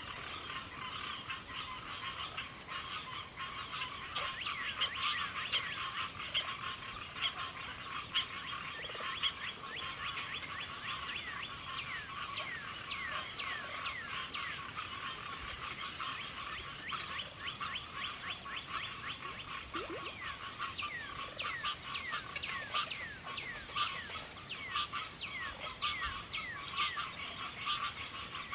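A chorus of crickets trilling steadily at a high pitch, with many short falling chirps layered beneath it.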